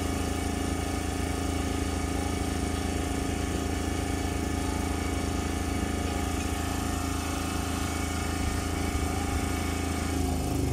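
An engine idling steadily, with a slight change in its note near the end.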